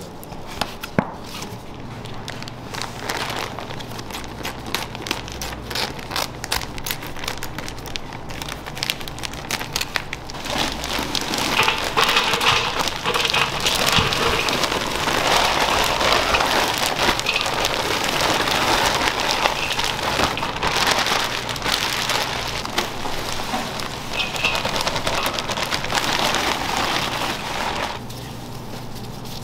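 Food-prep handling sounds: a run of small clicks and crackles as hamburger buns are sliced with a knife, then, about a third of the way in, a louder, denser crackling as minced raw beef is tipped into a steel bowl and worked by gloved hands. The crackling drops off near the end.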